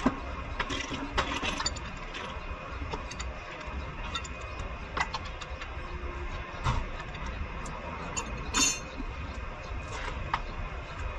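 Hand wrench working a bolt in a car's front suspension: scattered light metallic clicks and taps, and one brief ringing metal clink about three-quarters of the way through, over a low steady hum.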